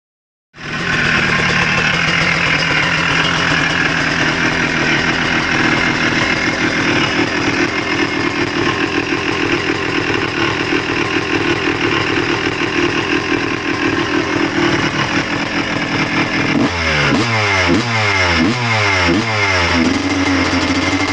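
2002 Honda CR250's single-cylinder two-stroke engine running hard. It starts suddenly after a moment of silence and holds a steady note, then near the end the pitch climbs and falls back over and over, about twice a second.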